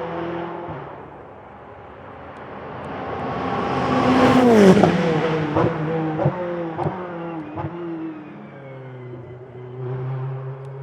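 A Ferrari 488 GT Modificata race car's twin-turbo V8 approaching and passing at speed, growing louder to a peak about four seconds in as its engine note drops sharply past the microphone. A few short sharp cracks follow before it fades away.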